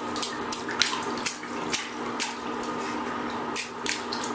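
Bathwater in a tub: a run of small splashes and drips over a steady background hum.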